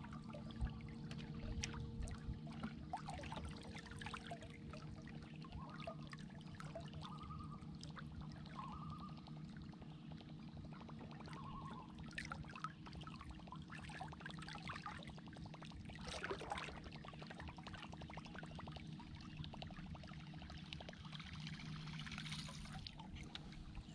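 Water gurgling and lapping against a boat hull, over a steady low hum, with scattered faint splashy ticks and a few short chirps.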